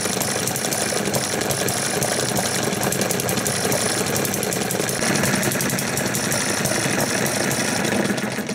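Eachine ET1 single-cylinder model hit-and-miss engine, fuelled with unleaded petrol and a drop of two-stroke oil, running steadily with a fast, even ticking rhythm. It gets a little louder about five seconds in.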